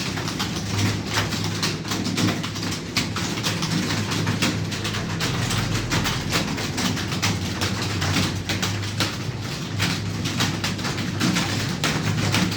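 Computer keyboard being typed on: quick, irregular key clicks, several a second, over a steady low hum.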